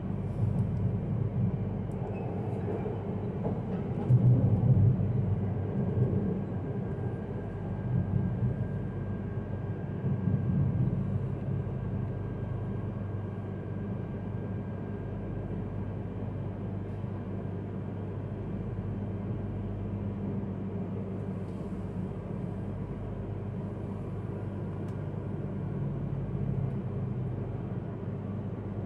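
Yamagata Shinkansen E3-series train running on the line, heard inside the passenger cabin: a steady low rumble with a faint thin whine above it, swelling a few times in the first dozen seconds before settling to an even run.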